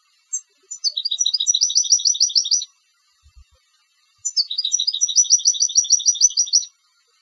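European goldfinch, a song-contest bird, singing two phrases. Each opens with a few varied high notes and runs into a fast trill of repeated notes lasting about two seconds, with a pause of about a second and a half between the phrases.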